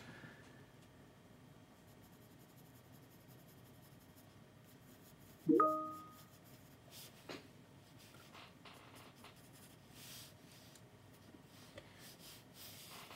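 Pencil scratching and stroking on sketchbook paper as a face is drawn. About halfway through, a single sharp knock rings briefly with a clear tone.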